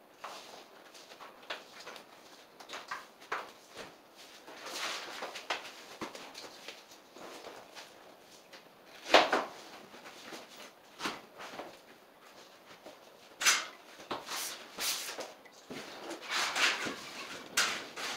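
Vinyl sheet flooring being worked by hand into the edge along the wall: irregular scraping, rustling and clicking, with louder scraping strokes about nine and thirteen seconds in.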